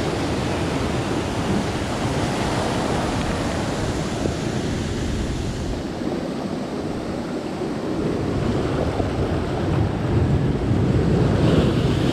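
Sea surf washing steadily, with wind buffeting the microphone, growing louder near the end.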